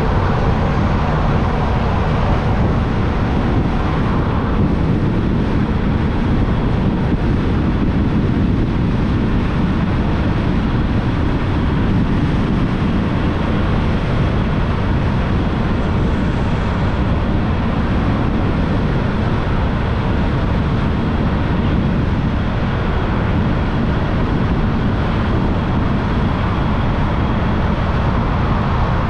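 Motorbike riding along at a steady pace: even engine and road noise mixed with wind on the microphone.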